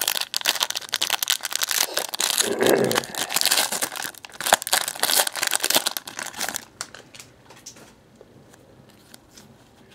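Foil wrapper of a Panini NASCAR trading-card pack crinkling and tearing as it is ripped open by hand. It falls much quieter about seven seconds in, as the cards are slid out.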